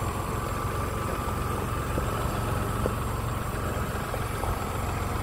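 Tractor engine running steadily at a low, even speed.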